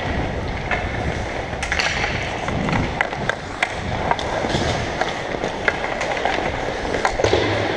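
Ice hockey skates scraping and gliding over rink ice, with repeated sharp clacks of sticks and puck striking the ice.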